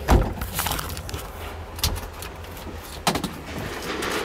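A few sharp knocks and clicks, the loudest just after the start, as a chrome trim strip and its small screws are handled and set down.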